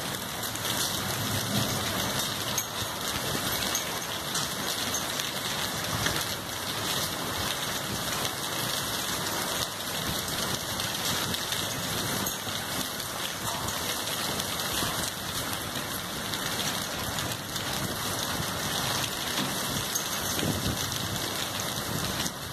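Intense rainfall pouring steadily, an even, unbroken hiss.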